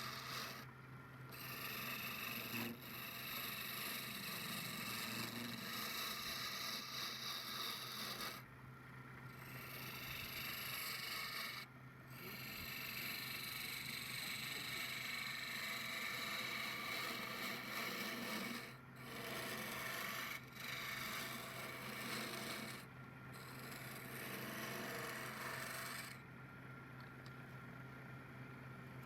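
Wood lathe running with a turning tool scraping against the spinning wood, over a steady hum; the cutting sound drops out briefly several times.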